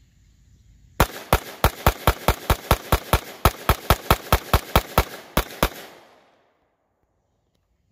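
CZ Scorpion EVO 3 Micro 9mm pistol firing semi-automatically in a fast string of about twenty shots, roughly four to five a second, starting about a second in. It has a dummy suppressor, so the shots are unsuppressed. Each shot is sharp, and the echo fades off after the last one.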